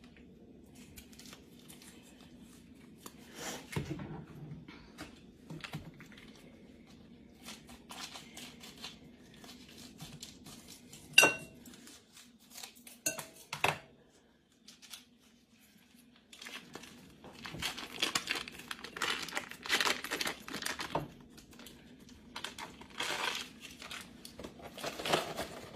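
Foil wrapper of a softened block of cream cheese being crinkled and torn open in scattered bursts, busier in the second half, with a few sharp knocks near the middle. A faint steady low hum runs underneath.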